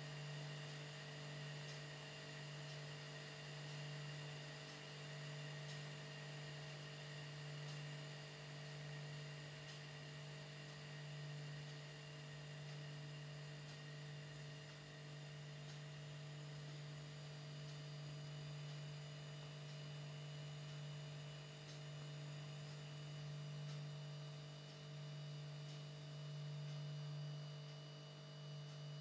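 A low steady hum that slowly swells and fades, with fainter steady higher tones above it.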